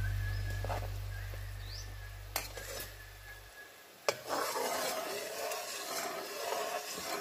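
Sugar syrup bubbling and sizzling in a metal wok while a metal spatula stirs and scrapes it, starting about four seconds in with a knock. Background music fades out during the first half.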